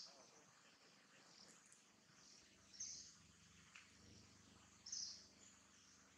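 Quiet outdoor ambience with a short high chirp about every two seconds: one near the start, one about three seconds in and one about five seconds in.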